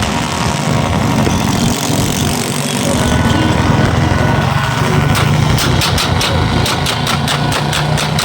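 A vehicle engine running steadily with a low hum. From about five seconds in, a regular series of sharp beats joins it, about three to four a second.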